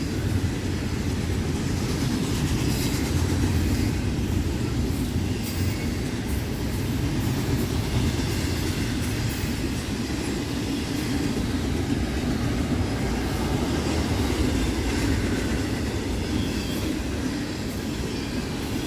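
Intermodal freight train's cars rolling past at track side: a steady low rumble of wheels on rail with faint clicking from rail joints.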